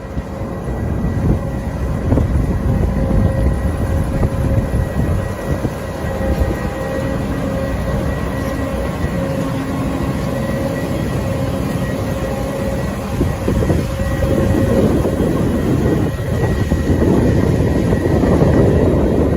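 Heavy farm machinery running in the field, a potato harvester at work: steady engine and machine noise with a constant whine, growing louder and busier in the last few seconds.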